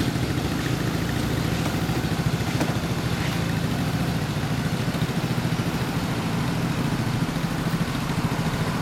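Yamaha Cygnus-X scooter's single-cylinder four-stroke engine idling steadily through an aftermarket Windjammers full-titanium exhaust, with an even, throbbing beat.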